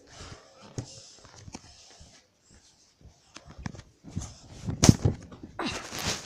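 Rustling and scattered knocks of a phone being handled close to its microphone, with a sharp thump about five seconds in and a burst of rustling near the end.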